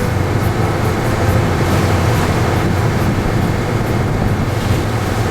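Boat engine running steadily, a low rumble with wind and water hiss over it.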